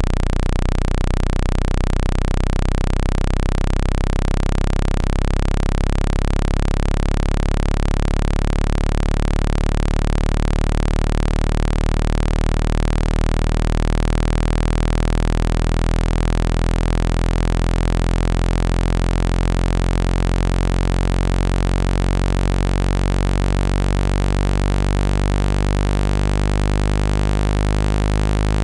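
Steady low electronic tone, a speaker-cleaning sound meant to vibrate trapped water out of a phone speaker (billed as 165 Hz). It plays as a continuous buzzy drone with many overtones that slowly shift.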